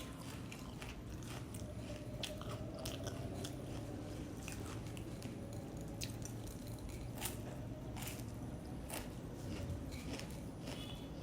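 Close-up chewing of puffed rice (muri) with jackfruit: irregular crisp crunches and bites, a few sharper ones scattered through.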